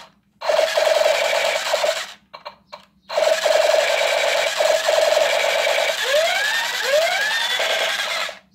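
Battery-powered toy gun's electronic sound effect: a rapid buzzing machine-gun rattle in two bursts with a short break between, the second with a few rising laser-like sweeps near its end, then it cuts off suddenly.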